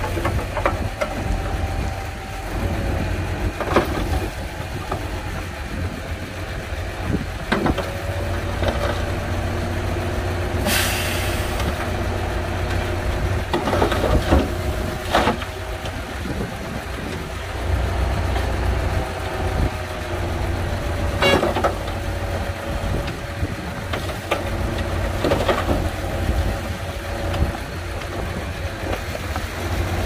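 Heavy diesel earthmoving machinery at work: a steady low engine drone with pitched engine tones that come and go and shift in pitch, scattered clanks and knocks, and a short hiss of air about eleven seconds in.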